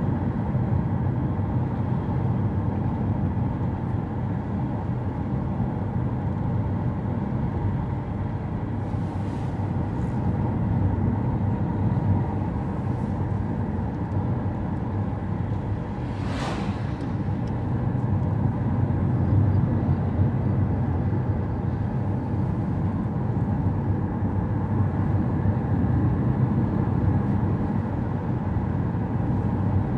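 Steady road noise of a car driving: engine and tyres rumbling evenly, with a brief click about sixteen seconds in.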